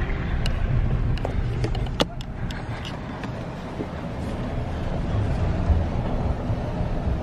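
Car cabin noise while driving: a steady low rumble of engine and tyres heard from inside the vehicle, with a few light clicks in the first couple of seconds.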